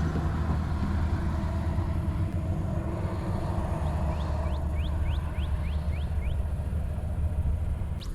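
A steady low rumble, like a motor vehicle running. In the middle comes a quick series of about seven short, rising chirps.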